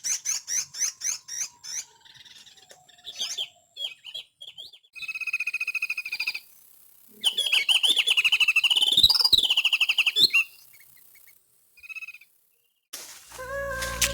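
Small songbirds calling: a quick run of repeated chirps at first, a trill about five seconds in, then a long warbling song lasting about three seconds. Music comes in near the end.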